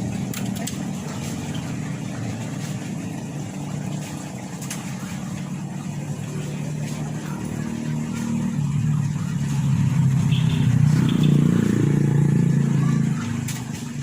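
A motor running with a steady low drone, swelling louder in the second half and dropping away just before the end.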